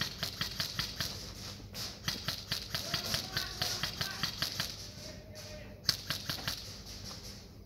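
Airsoft rifles firing in a steady string of sharp clicks, about four a second, with one louder crack near the end.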